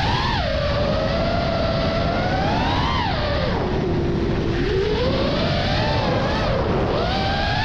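FPV freestyle quadcopter's brushless motors and propellers whining, the pitch climbing and dropping several times as the throttle changes.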